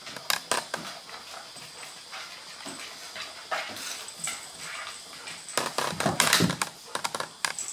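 A Golden Retriever and a Maltese playing on a hardwood floor: panting and scattered sharp clicks of claws and paws on the boards, with a louder stretch of dog noise about six seconds in.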